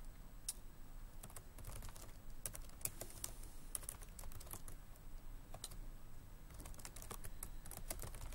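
Typing on a computer keyboard: short runs of quick key clicks broken by pauses.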